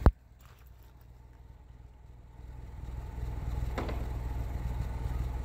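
2005 Chevy Cavalier's 2.2-litre four-cylinder engine idling, heard at the tailpipe as a steady low exhaust drone that grows louder about halfway through. A sharp thump at the very start and a brief click near the end.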